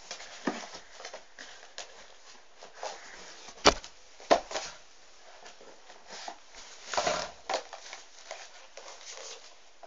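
Books being handled and rearranged on a shelf: scattered knocks and rustles of covers, with sharp knocks about three and a half and four seconds in and a heavier thump around seven seconds.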